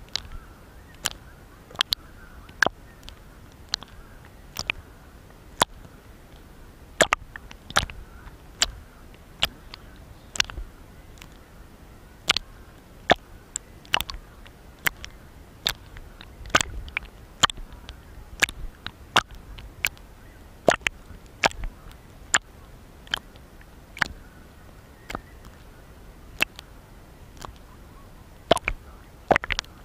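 Small waves lapping against a camera's waterproof housing at the water surface: sharp, irregular taps and clicks, about one or two a second, over a faint low rumble of moving water.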